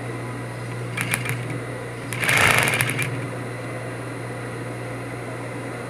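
Industrial sewing machine stitching slowly in short bursts, a brief one about a second in and a longer, louder run about two seconds in, over a steady low motor hum.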